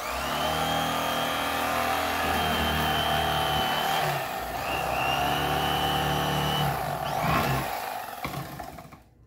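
Corded electric fillet knife running as it cuts a crappie fillet, its motor buzzing steadily. It switches on at the start, its note dips briefly about four seconds in, and it switches off near the end.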